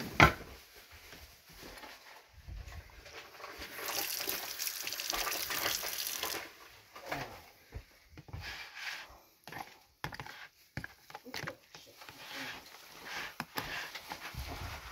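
Metal spoon stirring cooked instant ramen noodles in a plastic tub, with scattered light clicks and scrapes. A sharp knock just at the start is the loudest sound, and a stretch of hiss comes about four seconds in.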